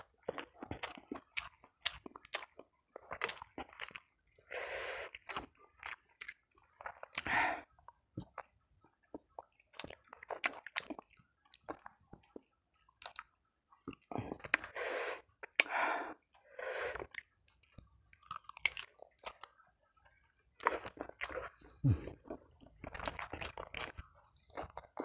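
Close-up chewing of fried chicken, rice and cassava leaves eaten by hand. Many short wet mouth clicks, with a few longer, louder stretches of chewing.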